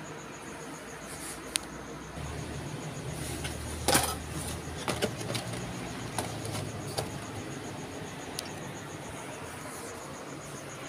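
Crickets chirping steadily in a rapid pulsing trill, with scattered clicks and one louder knock about four seconds in as a cardboard cake box is handled.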